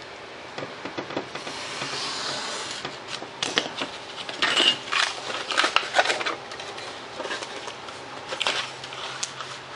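Foam board and its taped-on paper plan sheet being worked by hand: a short scraping stroke about a second and a half in, then a run of crackles and taps as the cut wing-spar strip is separated and the board is moved.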